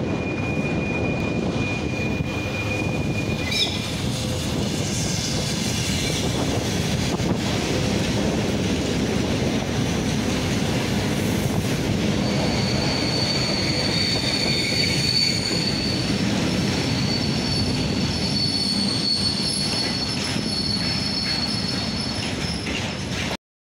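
ER9M electric multiple unit rolling past close by: a steady loud rumble of wheels on rails, with thin high wheel squeal from about halfway through until near the end.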